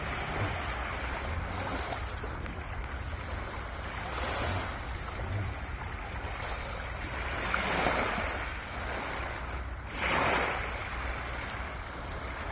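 Small sea waves washing onto a pebble beach, swelling and fading several times, the strongest wash about ten seconds in, over a steady low rumble.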